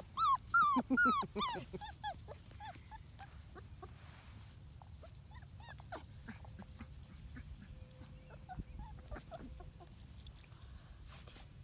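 Four-week-old Labrador puppies whimpering and yipping: a quick run of high cries, each falling in pitch, over the first couple of seconds, then fainter, scattered squeaks.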